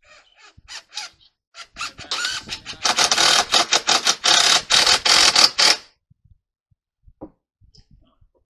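Cordless power driver with a long bit driving a screw into the roof edge: a few short clicks at first, then about four seconds of rapid rattling as the screw goes in, stopping abruptly.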